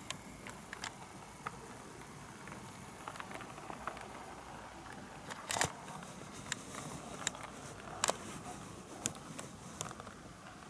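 HO-scale model train, an EF81 electric locomotive with Suhafu 42 coaches, running on KATO Unitrack: a faint steady rolling hiss with sharp clicks about once a second as the wheels cross the rail joints.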